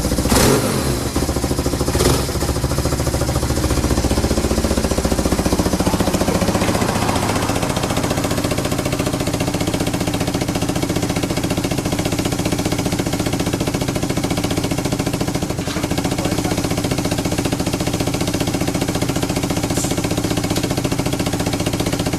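BMW R1100RT boxer twin engine idling steadily and evenly, without abnormal noise. Near the start there is a short loud burst whose pitch falls back to idle, and a sharp click follows about two seconds in.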